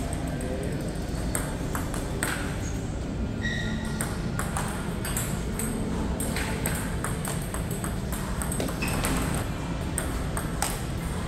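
Table tennis ball clicking irregularly off paddles and the table, at times several hits a second, over a steady low hum.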